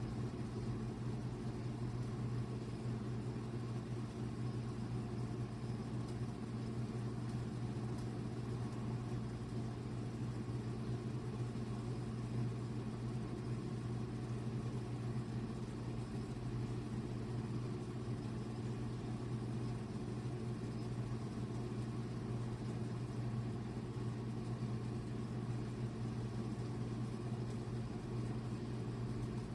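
Ultrasonic cool mist humidifier running with a steady low hum, before it has begun to put out mist.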